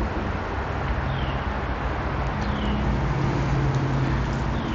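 Steady rumble of road traffic on the bridge overhead, with an engine hum growing louder in the middle. A bird's short falling call repeats about every second and a half.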